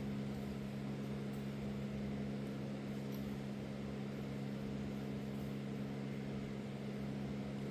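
Steady low hum of a small motor running in the background, even in pitch and level, with no distinct knocks or tool sounds.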